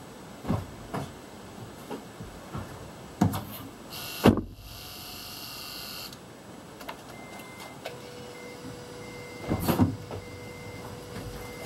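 A car being switched on for an engine test, with no engine running yet: clicks and knocks, a short hiss, then a repeating high electronic beep over a steady electric hum.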